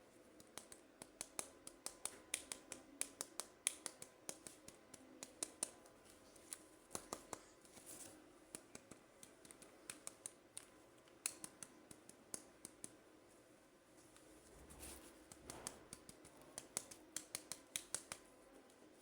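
Scissors snipping at toy packaging: irregular runs of small, sharp clicks, with a short break about two-thirds of the way through.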